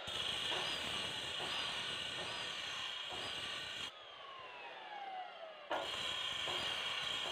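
Bosch abrasive cut-off saw running with a high whine while a small steel bolt head is held against its wheel to grind off the corners. About four seconds in the motor is switched off and winds down with a falling pitch, then it starts again sharply near the end.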